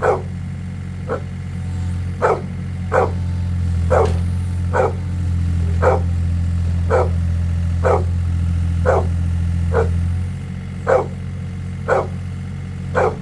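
A mini excavator's engine running steadily, growing louder from about two to ten seconds in as the bucket digs into the clay. Over it, a dog barks repeatedly, about once a second.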